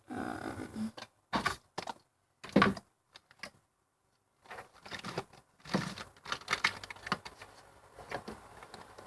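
Objects being rummaged through and handled: irregular knocks, clatters and rustling, with one louder knock about two and a half seconds in and a brief silence before a second run of small clicks.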